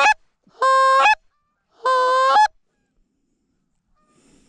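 A hunter's goose call blown in three loud, close honks, each a held note that cracks upward at the end. This is calling to draw in circling geese.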